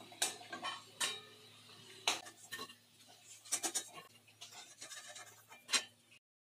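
Metal spatula clinking and scraping against a plate and pan as fried fish chops are set down on paper towel: irregular light knocks spaced a half-second to a couple of seconds apart, over a faint low hum. The sound cuts off abruptly near the end.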